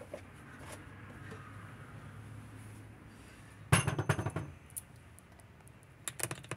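Hard kitchenware clinking and clattering as it is handled at the counter: a quick burst of clatter about four seconds in, the loudest part, then a few more clinks near the end.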